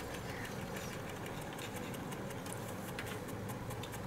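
Small electric motor of a toy spin-art machine running steadily, spinning the paper, with a low hum and a fast, light ticking.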